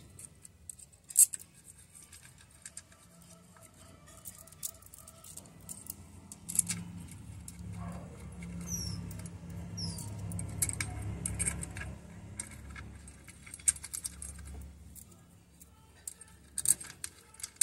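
Small metallic clicks and taps as the clutch spring retainer plate's bolts are set and threaded in by hand on a Bajaj mototaxi's clutch. A low rumble runs underneath from about five to fifteen seconds in.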